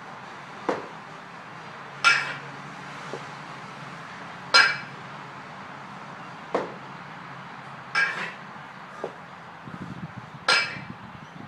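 Steel 18 kg kettlebell in a long cycle (clean and jerk) set: sharp metallic clinks that ring briefly, two per rep, with duller knocks between them, the pattern repeating about every six seconds at 10 reps a minute.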